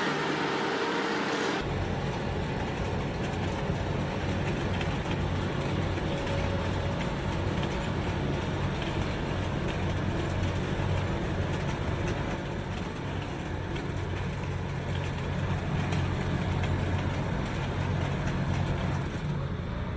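Heavy vehicle engine running steadily with a low rumble. A hissing, higher-pitched sound cuts off abruptly about a second and a half in, where the engine sound begins.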